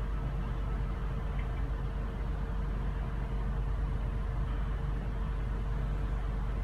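Car engine idling, heard from inside the cabin as a steady low rumble with a faint constant hum over it.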